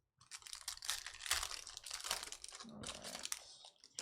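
Foil wrapper of a baseball card pack being torn open and crinkled: a dense, crackling rustle lasting about three and a half seconds.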